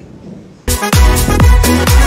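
Electronic dance music with a punchy kick-drum beat, cutting in sharply about two-thirds of a second in after a moment of quiet room tone.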